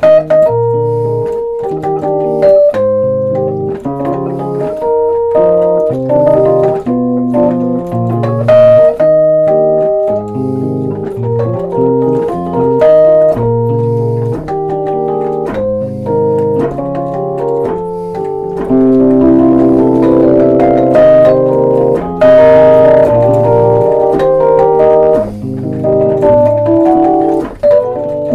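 Rhodes Suitcase 73 electric piano played through its built-in amplifier: sustained chords over low left-hand bass notes in a jazz ballad.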